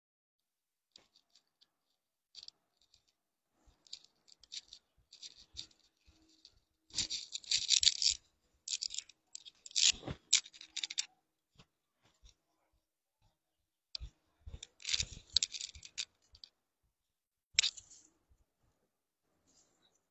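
Intermittent rustling and crinkling of clothing being picked up and handled from a stack, in irregular bursts with soft knocks, loudest about seven to eight seconds in.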